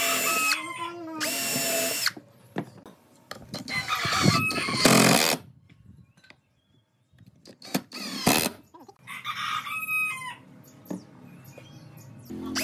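Cordless drill run in short bursts, about five in all, boring countersunk pilot holes and driving screws into pine bench framing. The motor whine rises in pitch on the longer burst a few seconds in.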